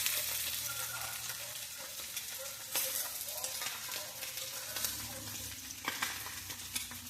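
Spam slices sizzling steadily in a frying pan, with a few sharp scrapes or knocks of a utensil against the pan about a third of the way in and near the end.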